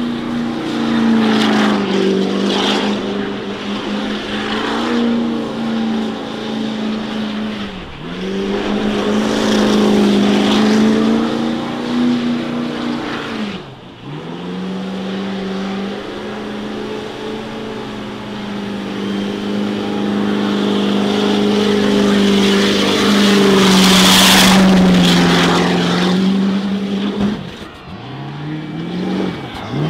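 Car engine held at high revs in a burnout, over a wide hiss of spinning-tyre noise. The revs drop sharply and climb back a few times, and it gets louder for a few seconds late on.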